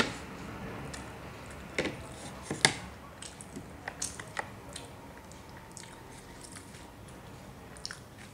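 Close-miked chewing and mouth sounds, with a few sharp clicks and taps as a small bowl is tipped out onto a plate. The loudest clicks come near the start and at about two and three seconds in, with a run of smaller ticks around four seconds.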